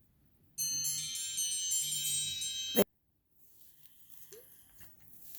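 A cluster of high, bell-like chiming tones rings together for about two seconds, then cuts off with a sharp click.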